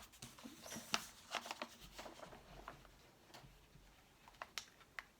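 Faint, scattered clicks and rustles of a cardboard wing being pressed by hand onto a plastic bottle.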